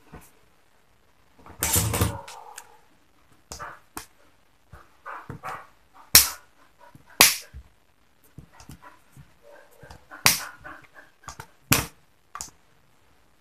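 Pliers and small metal pump parts handled on a workbench, giving scattered sharp clicks and knocks, the loudest about six and seven seconds in, with a longer scraping rattle about two seconds in.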